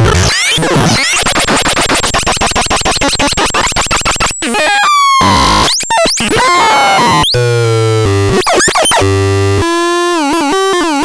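Synthesizer making harsh electronic noises: first a fast buzzing pulse train with falling zaps, then pitched tones that glide and step up and down over a low bass note, all at high volume.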